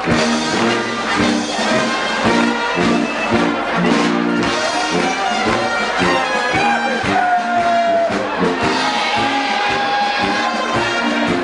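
Background music with brass: trumpet and trombone lines over rhythmic chord stabs, with long held notes in the middle.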